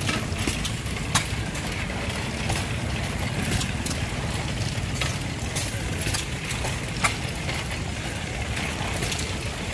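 Antique stationary gas engines running steadily, with sharp clicks at uneven intervals, about one every second or two.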